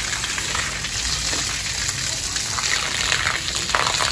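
Water jetting from a garden hose and splashing steadily onto a concrete roof floor as it is washed down.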